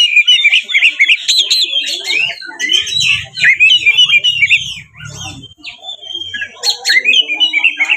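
Oriental magpie-robin (kacer) singing a loud, fast, varied song of whistles and chattering notes, with a brief lull about five seconds in before it resumes. This is a fighting-style song used as a lure to set other kacer singing.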